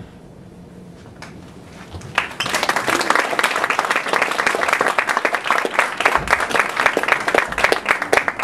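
The last of the dance music fades out, and about two seconds in a theatre audience breaks into applause that keeps going.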